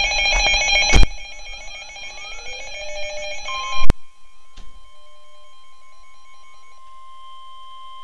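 Weather alert radio sounding its alarm: a warbling electronic beeping that steps back and forth in pitch and drops in level after about a second. Then comes a loud click, and a single steady alarm tone that carries on to the end, announcing a blizzard warning.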